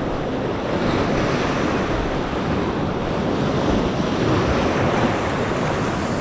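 Ocean surf washing over rocky shore ledges: a steady, continuous rush of breaking and swirling water.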